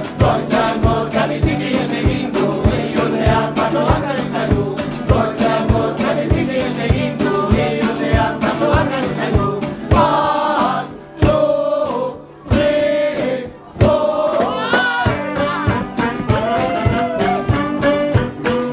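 Live band music: a woman singing over saxophone and a plucked stringed instrument with a steady beat. The band breaks off briefly three times around the middle.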